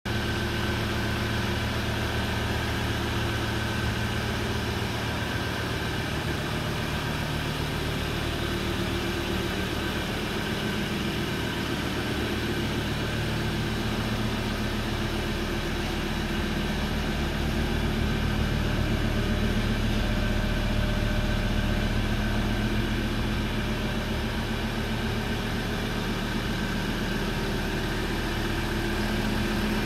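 Engine of a pickup-based fire truck idling steadily, a little louder in the middle.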